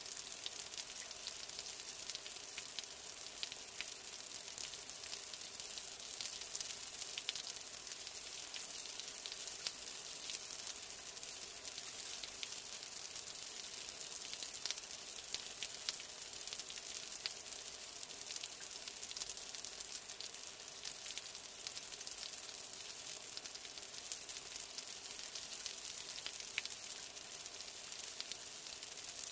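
Steady rain: an even, high hiss thick with small drop ticks, with no thunder.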